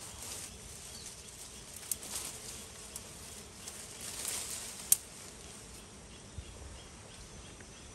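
Rustling of vines and dry twigs as a hand pushes through tangled undergrowth, with a few sharp snaps, the loudest about five seconds in.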